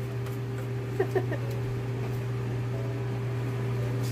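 Steady low hum of a kitchen vent fan running over the stove, with a few faint clicks about a second in.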